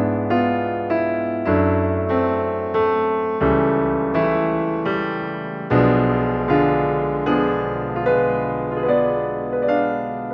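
Background piano music: a calm melody of single notes struck about twice a second over lower held notes that change every couple of seconds.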